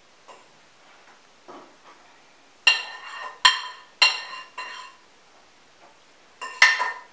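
A metal spoon knocking and scraping against a ceramic dish as flour is emptied out of it. A few soft scrapes come first, then ringing clinks: four in quick succession about halfway through, and two more close together near the end.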